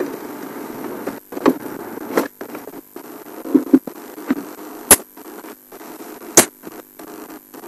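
Game-drive vehicle's engine running with a steady hum, while the transmission breaks up: sharp clicks and crackles and several brief dropouts to silence, the two loudest clicks about five and six and a half seconds in.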